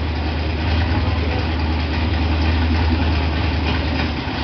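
Dodge V8 engine idling with a steady low rumble.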